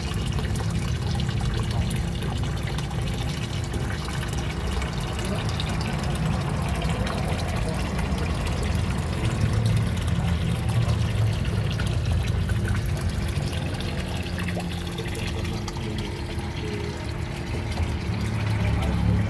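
Water running and bubbling steadily in a fish tank, with a faint steady hum underneath.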